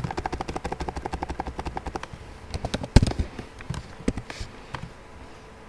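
Computer keyboard typing: a fast run of keystrokes for about two seconds, then a few separate, harder key strikes, the loudest about three seconds in.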